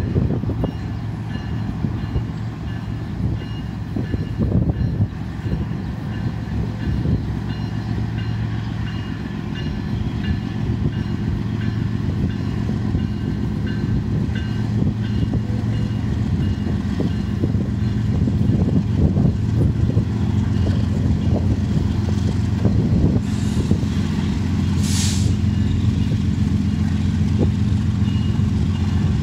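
BNSF diesel freight locomotives approaching, their engines' deep rumble growing steadily louder as they near.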